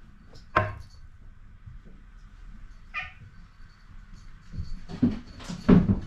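A cat's short meow about three seconds in, with knocks and thumps on the wooden cat walkway around it; the heaviest thumps come near the end.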